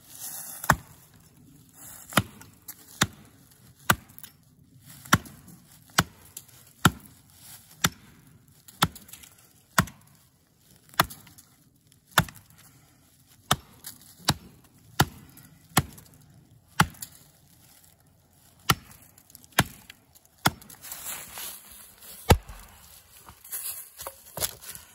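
Cold Steel Trail Boss axe with a hickory handle chopping into a small elm trunk: about twenty sharp blows at roughly one a second, then a few seconds of rustling in dry leaves underfoot near the end.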